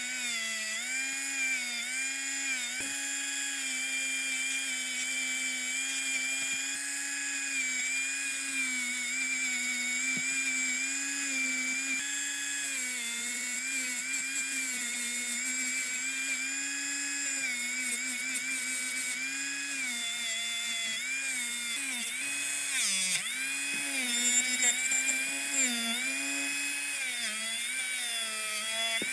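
Small high-speed rotary tool running steadily with a high whine, its pitch dipping briefly and recovering again and again as it bears on the work, most often near the end.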